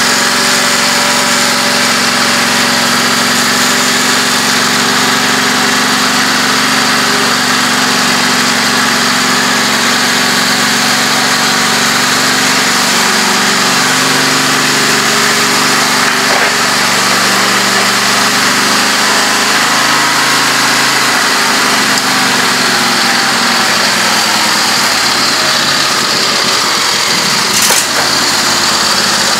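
Husqvarna YTH2448 riding lawn tractor's engine running steadily soon after a cold start while the tractor is driven. Its note shifts in the middle, and there is a single click near the end.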